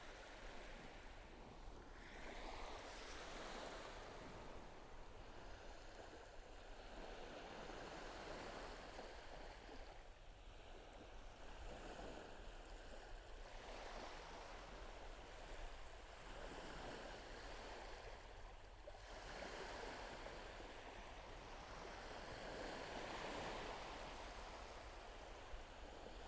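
Ocean surf washing up a sandy beach, the wash swelling and fading every few seconds.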